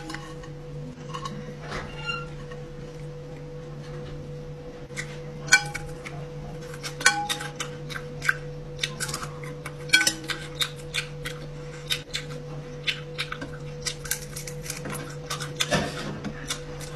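Metal utensils clinking and tapping against a basin: irregular light clicks, some with a short ring, more frequent near the end. A steady low hum runs underneath.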